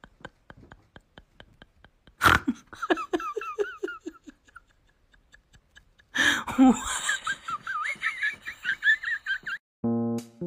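A person laughing in two bouts, each starting suddenly, the second one high-pitched. Faint even clicks come before the laughter, and piano music starts just before the end.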